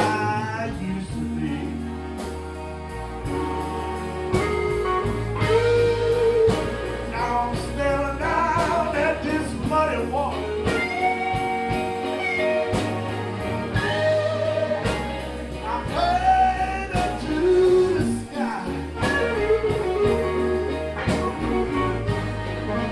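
Live blues band playing, with a lead melody line that bends and slides in pitch over guitar, steady low bass notes and drums.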